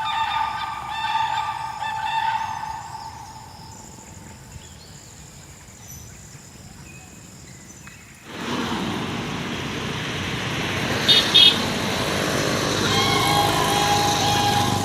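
Birds honking repeatedly, the calls fading after a few seconds. About eight seconds in a steady rushing noise starts abruptly, with two short sharp sounds in it, and the honking returns near the end.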